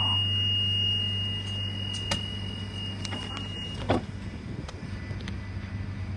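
Tram door-closing warning, a steady high-pitched tone, sounds until nearly four seconds in, when it stops and the sliding doors shut with a sharp knock. Under it the tram's electrical equipment hums low and steady, turning rougher as the tram starts to move off.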